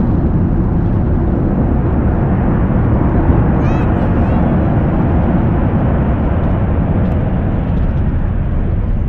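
Steady low rumble of the Airbus A340-300's jet engines heard inside the cabin while taxiing. A few faint high chirps come through about four seconds in.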